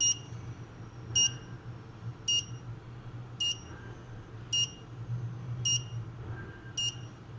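WiFi garage-door-opener controller's buzzer giving short, high beeps about once a second, seven in all, the signal that it is in network-pairing mode. A steady low hum runs underneath.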